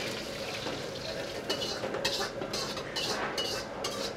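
Onion, capsicum and green chillies sautéing in oil in a kadai: a steady frying hiss. From about a second and a half in, a metal ladle scrapes and clinks against the pan several times as it stirs.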